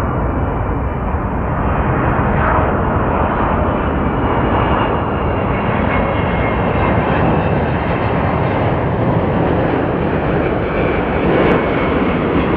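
Boeing 777 twin-jet on final approach with its landing gear down, its engines giving a loud, steady jet rumble with a faint thin whine above it.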